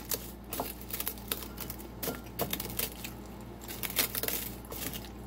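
Metal fork clicking and scraping against a ceramic bowl as it crushes Cheetos cheese puffs: a run of irregular sharp clicks and light crunches, over a faint steady electrical hum.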